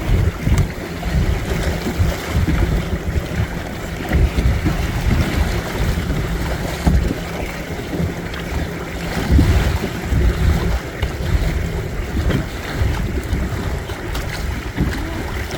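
Wind buffeting the microphone in uneven gusts, over the wash of water along the hull of a small Windrider 17 trimaran under sail.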